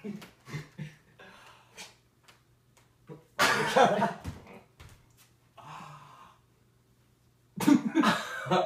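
Two people breathing and laughing as they lose their balance and stagger out of a held partner yoga pose, with a loud outburst about three and a half seconds in and another near the end.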